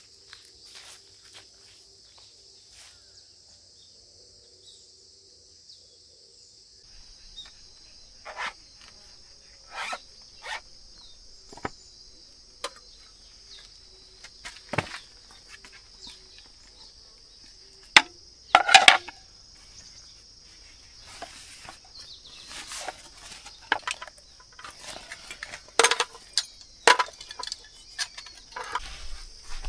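Insects chirring steadily in the background, with light clicks, clinks and rattles of camp cookware and a small camp stove being handled starting about a quarter of the way in and growing busier toward the end. The loudest is a quick rattle a little past halfway.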